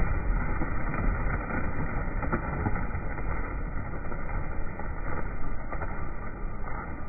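Pigeon flock's wingbeats on take-off, slowed down with the slow-motion footage so that they come out as a deep, rough, continuous flutter with no clear single strokes.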